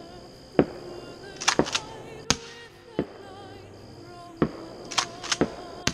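About eleven sharp explosive bangs from gunfire and fireworks, several of them in quick clusters of two or three, with music and a steady high tone underneath.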